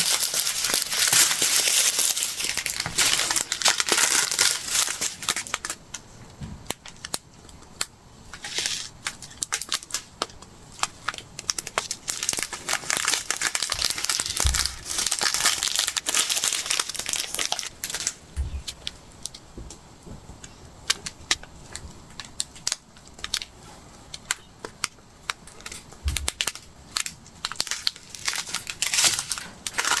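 Small plastic bags of diamond painting resin drills being handled: an irregular crinkling and crackling of plastic, louder at the start and near the end with quieter stretches between.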